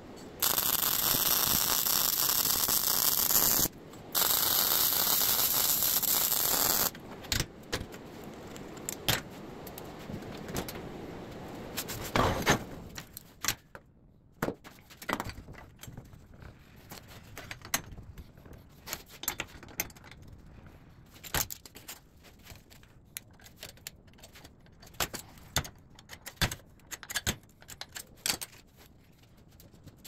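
Arc welding on steel: two welds of about three seconds each, a steady hiss of the arc with a short break between them. After that come scattered clanks, knocks and scrapes of steel brackets being handled and set on a steel welding table, one knock louder than the rest.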